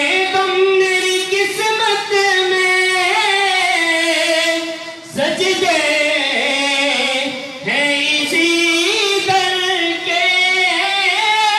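A single high voice sings unaccompanied devotional recitation in long, drawn-out melodic phrases, pausing briefly for breath about five seconds in and again near eight seconds.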